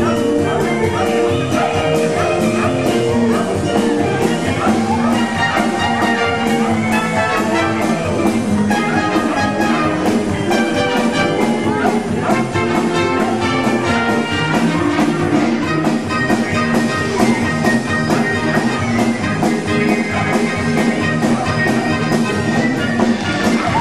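Live circus band playing lively orchestral music with a steady beat.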